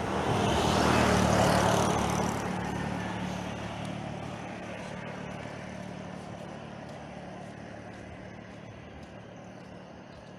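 A motor vehicle going by: engine and road noise swell about a second in, then fade away slowly over a steady low engine hum.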